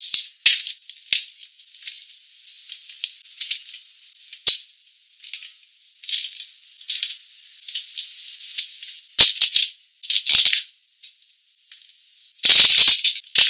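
Aluminium foil crinkling and rustling as pieces of raw food are laid onto a foil-lined baking tray: a run of short, crisp rustles, sparse at first and thicker later, with the loudest, longest crinkle about a second before the end.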